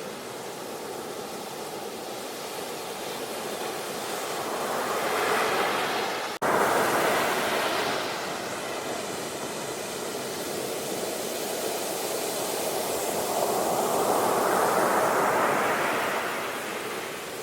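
Sea waves washing in, the surf noise slowly swelling and fading, with a momentary break about six seconds in.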